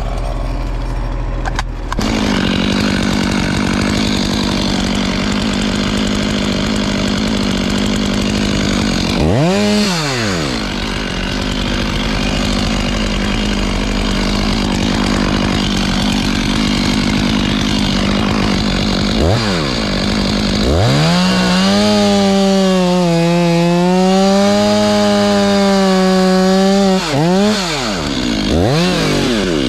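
Two-stroke chainsaw running at high revs while cutting wood. The engine note drops and picks back up a few times, and in the second half its pitch sags and wavers for several seconds as the chain works under load.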